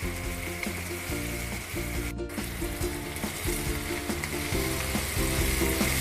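Chopped onions and bell peppers sizzling in hot oil as they are stir-fried on a high flame in a pan, under soft background music of held notes that change every half second or so.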